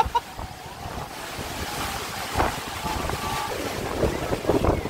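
River waves surging and breaking over large rocks at the shore, with wind blowing on the microphone.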